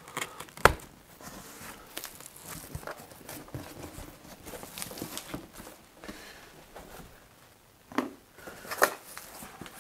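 Cardboard box being cut and opened by hand: scraping, crinkling and tearing of cardboard and tape, with a sharp click under a second in and two louder knocks about eight and nine seconds in.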